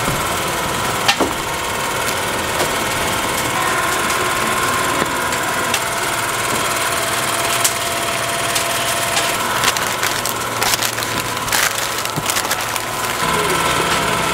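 Sheets of paper rustling and crinkling under hands as raw chicken is laid on them, with sharp crackles that come thicker in the second half, over a steady background hum.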